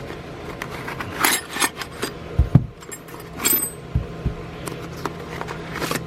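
Metal flare nut wrenches being handled and clinking against each other, with a couple of dull knocks as they are set down and a short high metallic ring about three and a half seconds in.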